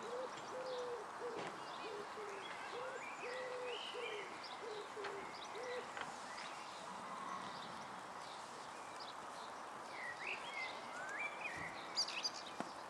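Birds calling outdoors: a run of short, low, even notes repeated about two a second for the first five seconds, with higher chirps and whistles from small birds throughout.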